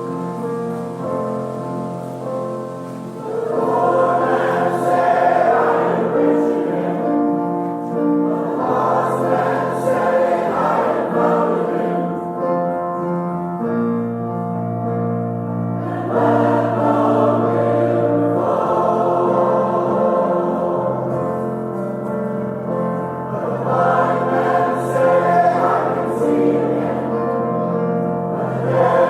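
Church choir singing a hymn over sustained instrumental accompaniment. The voices come in about three seconds in, drop out briefly around the middle while the accompaniment holds a low chord, then sing again.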